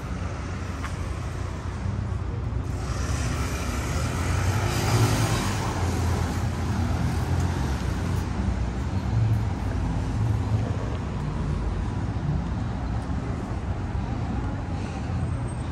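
Street traffic at a city intersection: a steady rumble of engines and tyres, with one passing vehicle growing louder about three seconds in and fading after about six.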